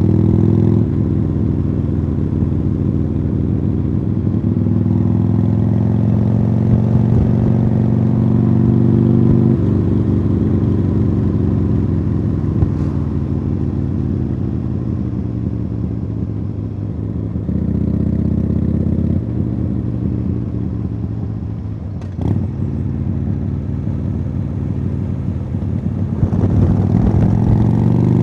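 A 2015 Harley-Davidson Sportster Iron 883 V-twin running through Khrome Werks Tapered 3 aftermarket exhausts while riding. The engine note steps down and back up several times as the throttle closes and opens, with a sharp click about 22 seconds in, and it rises again near the end.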